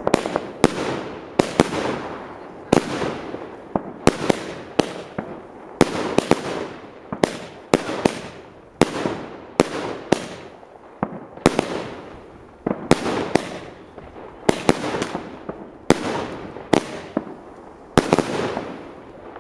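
A 19-shot consumer firework cake firing peony shells: a rapid, uneven series of sharp launch thumps and bursting bangs, often two or three a second, with an echo fading after each.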